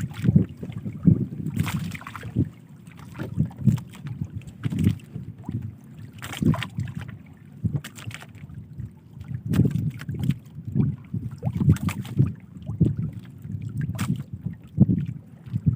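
Water slapping and sloshing against the hull of a small boat in irregular pulses, with a few sharper knocks.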